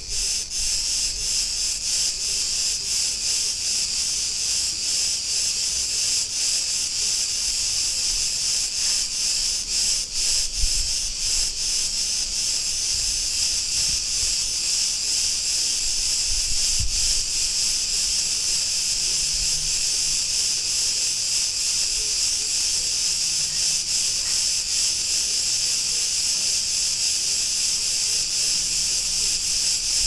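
Cretan cicadas singing in a dense chorus, a steady high-pitched buzz that pulses rapidly through the first dozen seconds and then evens out into a continuous drone.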